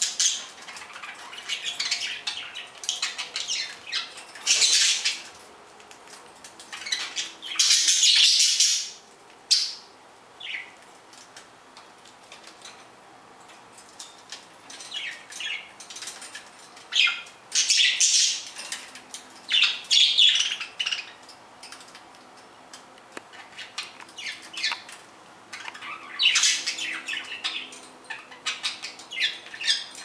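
A flock of pet budgerigars chattering and chirping without pause, broken every few seconds by louder, harsher squawking stretches of about a second each.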